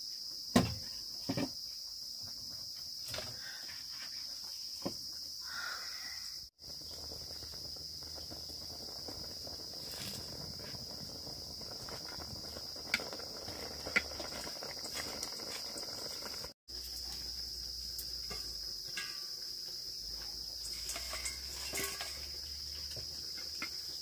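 Steady high-pitched chirring of insects, with scattered light clicks and knocks. The sound cuts out briefly twice.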